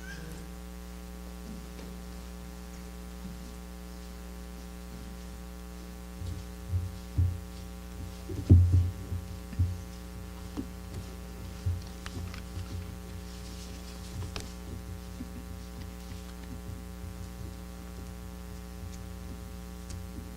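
Steady electrical mains hum through the sound system. From about six seconds in come irregular low thumps and knocks, the loudest near the middle, the kind made by footsteps or handling close to a microphone.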